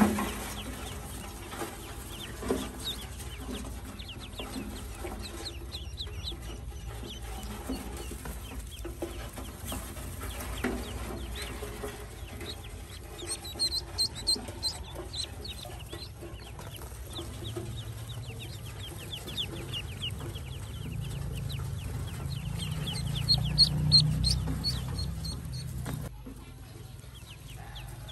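A brood of newly hatched Pekin ducklings peeping: short, high calls in quick runs, busiest in the middle and again near the end. A low rumble swells in the second half and stops suddenly shortly before the end.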